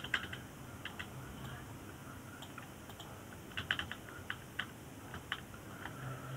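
Computer keyboard keys being pressed in short, irregular clusters of a few taps at a time.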